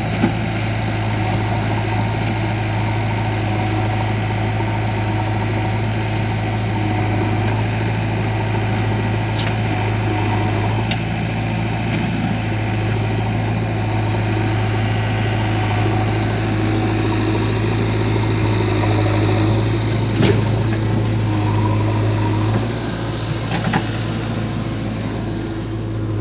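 Heavy diesel machinery engine running steadily at low revs, with a few short sharp knocks; the engine sound eases slightly a little over 22 seconds in.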